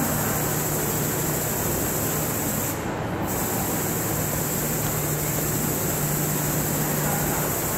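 Flipdot display panels of a kinetic fountain sculpture clattering steadily as their many small electromagnetic dots flip, a dense grainy rattle, over a steady low hum.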